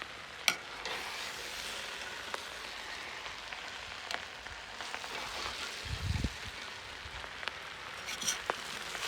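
Plov sizzling steadily in a kazan over the fire, with scattered sharp clicks and a brief low thump about six seconds in.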